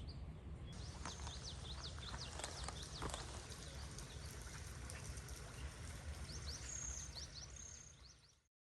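Birds chirping in many short, quick high calls over a faint steady low rumble, fading out near the end.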